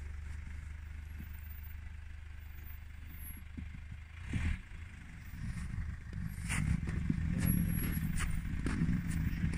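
Mercedes GLC SUV engine running with a steady low hum, growing louder about six seconds in as the car pulls forward through snow. A few short crackles come in the middle and latter part.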